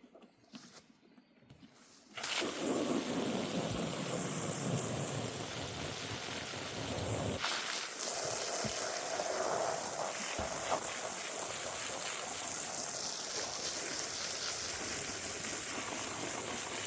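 Water running from a hose into a jug, starting about two seconds in and running steadily, with a short break about seven seconds in.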